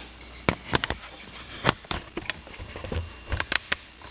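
A series of light clicks and taps from kitchen things being handled on a counter, in three small clusters with short gaps between them.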